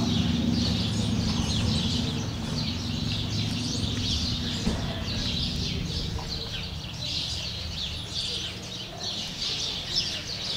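Many small birds chirping continuously, with a low steady hum underneath that fades away about halfway through.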